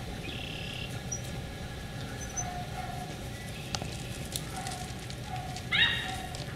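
Beagle puppy giving one short, high yelp that falls in pitch near the end, over steady low background noise, with a fainter brief high squeak about half a second in.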